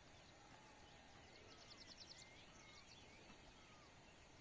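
Faint bird calls: scattered short chirps and whistled glides, with a quick high trill of about eight notes near the middle.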